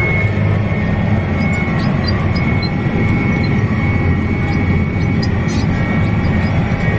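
Farm tractor running steadily under load while pulling an anhydrous ammonia applicator toolbar and nurse tanks across a field, heard from the cab: a constant engine drone with a steady high whine over it.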